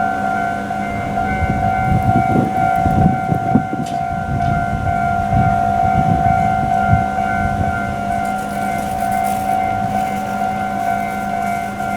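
Japanese railway level-crossing alarm ringing its repeating electronic 'kan-kan' bell tone without a break. Low rumbling and clatter rise and fall under it from about two to seven seconds in.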